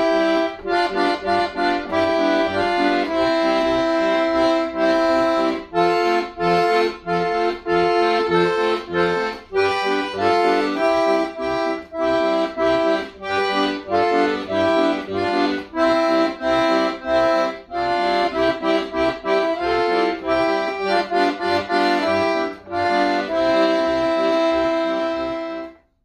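Accordion playing a folk tune: a melody of short notes over a regular pulsing bass, closing on a long held chord that fades out just before the end.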